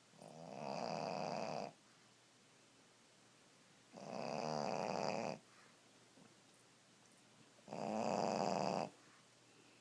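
A sleeping Pekingese dog snoring: three long snores, each lasting just over a second, coming about every four seconds. This kind of snoring is typical of a flat-faced breed.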